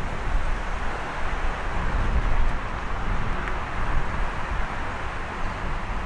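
Steady outdoor city ambience: a constant wash of distant road traffic, with wind rumbling on the microphone.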